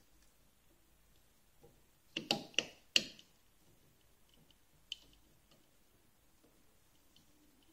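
A quick run of about four sharp clicks and taps about two to three seconds in, then one faint click near the five-second mark: a hex key and the metal roller bracket of a PTFE tape machine being handled during an adjustment.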